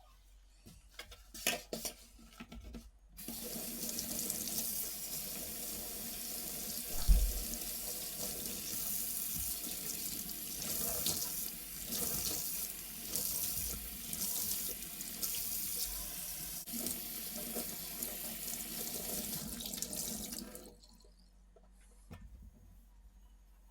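Water tap running into a sink: turned on about three seconds in, it runs steadily for about seventeen seconds and is then shut off. A single knock sounds about seven seconds in, with a few small clicks before the water starts.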